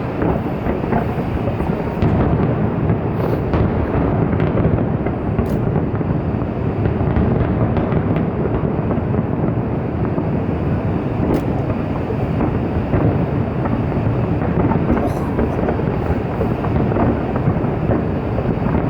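A fireworks barrage, its booms running together into a loud continuous rumble, with a few sharp cracks over it.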